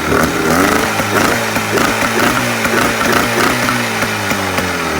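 Outboard boat motor running, its speed rising and falling unevenly, then winding down over the last couple of seconds.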